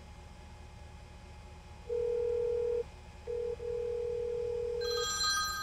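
Telephone call tone: a steady mid-pitched phone tone sounding in three stretches as a VoIP call is placed, then near the end a phone starts ringing with a bright, high electronic ring.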